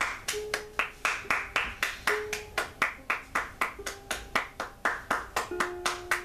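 Hands clapping steadily, about four claps a second.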